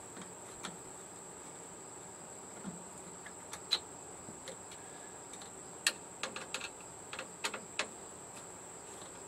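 Scattered light clicks and taps of small parts and tools being handled during TV power-board removal, irregular and a few at a time, over a constant faint high-pitched tone.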